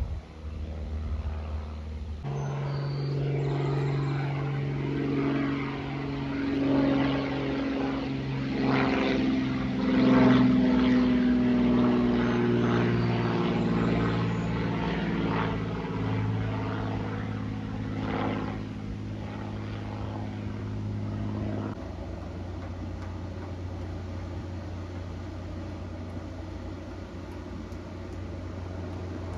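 Single-engine piston propeller airplane flying overhead: its engine drone builds to a peak about ten seconds in, the pitch sliding down as it passes, then fades to a lower steady drone.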